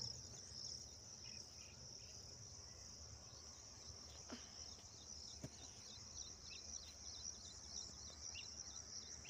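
Insects chirring in a faint, steady high-pitched trill that pulses quickly and never stops, over a low rumble.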